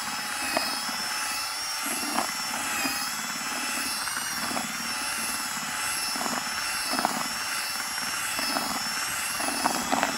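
Intertool cordless drill-driver running steadily with a whisk mixer, stirring damp fishing groundbait in a plastic bucket: a steady motor whine with scattered clicks.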